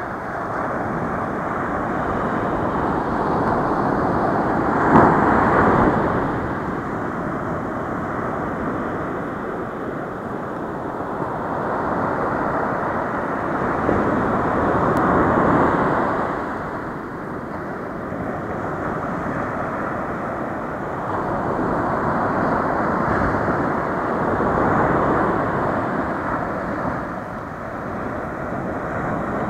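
Small ocean waves breaking and washing up a sandy beach: a steady surf hiss that swells and fades about every ten seconds, with the loudest wave about five seconds in.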